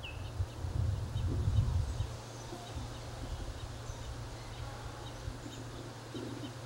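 Outdoor ambience: a low rumble, loudest in the first two seconds, under faint, scattered high chirps.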